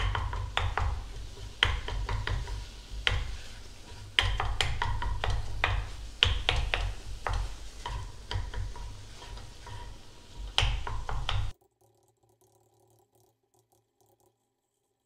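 A bundle of wooden disposable chopsticks stirring crumbled tofu in a stainless steel pot over high heat: irregular knocks, clicks and scrapes against the pot over a faint sizzle and a steady low rumble. The sound cuts off abruptly about eleven seconds in, leaving near silence.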